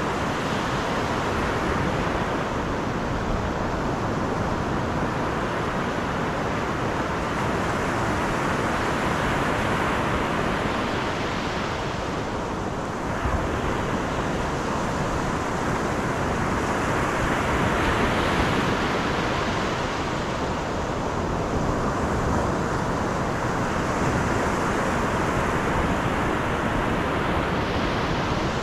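Steady rushing of a car driving on a road, tyre and wind noise, swelling and easing every several seconds.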